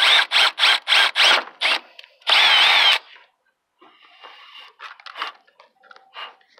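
Milwaukee cordless drill with a 5/16-inch bit boring holes through a car's mesh grille: about half a dozen short trigger bursts in the first two seconds, then one longer run of under a second. After that come only quiet handling sounds.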